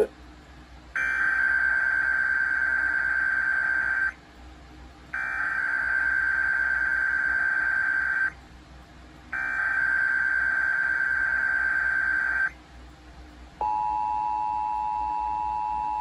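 Emergency Alert System SAME header: three identical bursts of screeching digital data tones, each about three seconds long with a short pause between. About a second after the third burst, the two-tone EAS attention signal starts, a steady dual-pitched tone that carries on past the end. This is the start of a Required Weekly Test.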